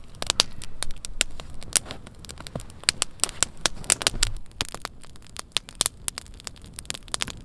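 Freshly lit campfire of dry twigs, wood shavings and split kindling crackling as it catches, with many sharp, irregular pops and snaps.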